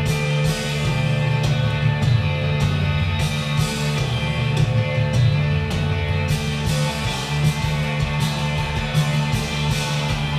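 Rock music with guitar, an instrumental passage without singing.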